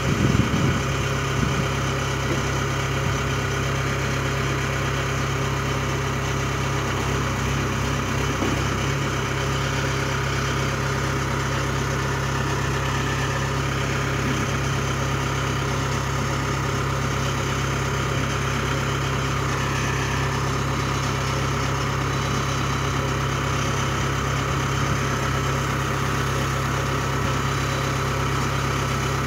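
Kubota DC68G Harvesking combine harvester's diesel engine running steadily at low speed, with a few knocks in the first second or so.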